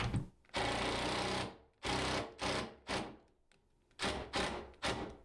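Cordless drill driving a screw through the cabinet side into the wall: one run of about a second, then several short bursts as the screw is snugged tight.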